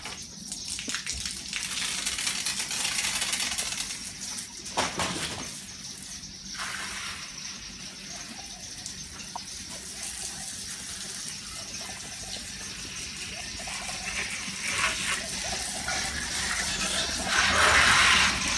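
Water spraying from a hose onto a bicycle and splashing on wet paving, swelling to its loudest near the end.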